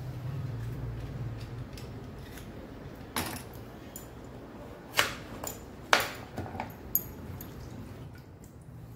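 Sharp clicks and knocks of a small kitchen knife and a vegetable peeler against a wooden chopping board while vegetables are peeled and cut. There is one knock about three seconds in, then a cluster between five and seven seconds, the loudest two near five and six seconds. A low steady hum fades out in the first two seconds.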